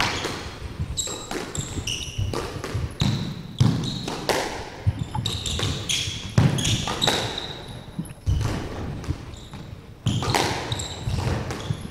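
A squash rally: the ball cracks off rackets and the court walls again and again, while court shoes squeak in short high chirps on the wooden floor.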